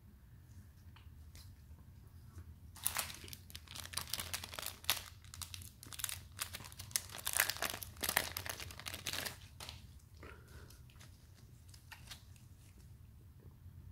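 Clear plastic wrapping crinkling in gloved hands. The crinkling runs for about six seconds from about three seconds in, followed by fainter rustling and light knocks.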